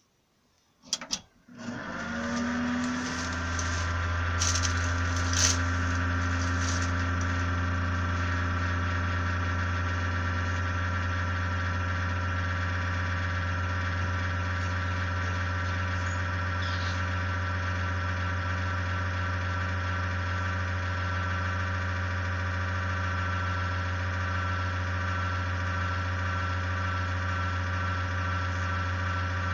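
A PC with an Ig-Max 1607 500W power supply switched on: a click, then the power supply and fans spin up and settle into a steady hum with a whine over it. A few more faint clicks come a few seconds after start-up.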